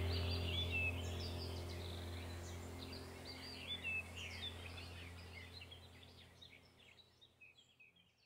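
Birds chirping over a steady low hum, the whole slowly fading out to near silence by the end.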